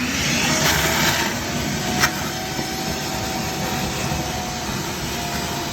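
A vacuum switched on and running steadily with a loud rushing hiss, a single sharp knock about two seconds in.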